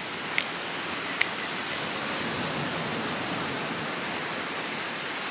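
Steady hiss of wind and surf, with two short clicks about half a second and a second in as a bamboo stick scrapes coconut meat inside the shell.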